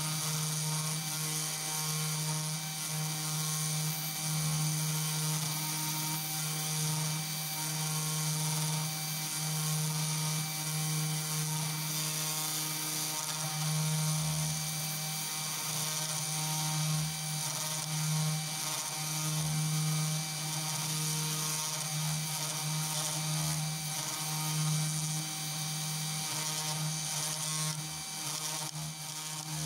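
CNC2418 desktop router's spindle running while its pointed engraving bit mills traces into a copper-clad circuit board. It is a steady motor hum with a high cutting hiss, swelling and dipping slightly in loudness as the head moves along the tool path.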